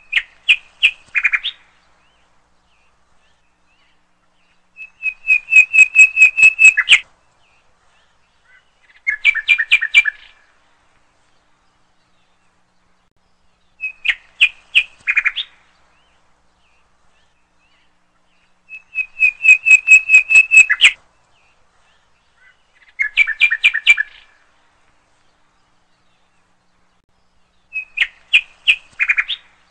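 Bird chirping in short phrases of quick high notes, one phrase every four to five seconds with silence between. The same three phrases come round again in the same order, like a repeating recording.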